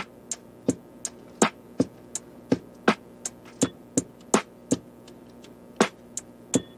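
Background music: a sparse percussion beat of sharp hits, about three a second, with a short break about five seconds in, over a faint held backing.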